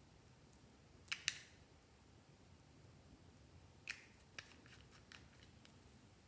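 Near-quiet room broken by a few short, sharp clicks or snips: a quick pair about a second in and two more at about four seconds.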